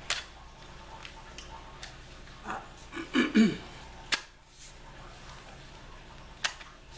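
Metal parts of an IAC Hawk 982 12-gauge pump shotgun being fitted together: a few sharp clicks and clacks as the barrel is slid over the magazine tube onto the receiver, with a louder short rasp a little past three seconds in.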